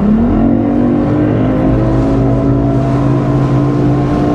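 Bass boat's outboard motor speeding up, its pitch rising over the first second, then running steadily at a higher speed.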